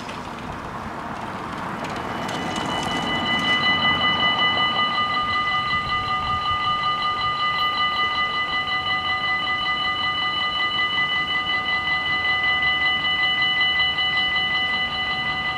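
Belgian level crossing warning bells start ringing about two seconds in and keep up a steady, rapidly pulsing clang, the signal that a train is approaching and the barriers are about to lower.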